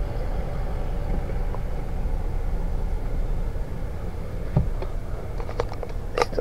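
Car running with a steady low rumble, and a few light clicks and knocks in the last couple of seconds.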